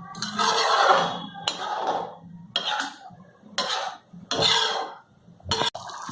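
A metal utensil stirring and scraping thick vegetable bhaji in a pan, in a run of short strokes about one a second.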